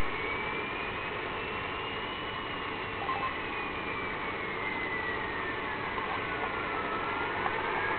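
Unidentified siren-like tone received by a Realistic PRO-2006 scanner on 126.000 MHz AM: a single whistle slowly wavering up and down in pitch over steady radio static hiss.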